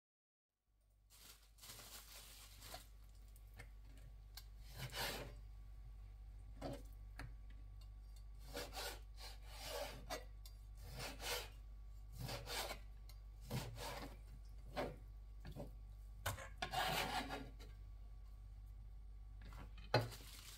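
Repeated rubbing and scraping strokes at an irregular pace, roughly one a second, over a steady low hum, typical of hands working food on a kitchen counter.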